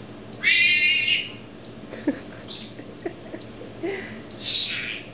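Senegal parrot calling: a high, slightly rising call with a rich stacked tone about half a second in, lasting under a second. A short high chirp follows, then a harsher, noisier squawk near the end.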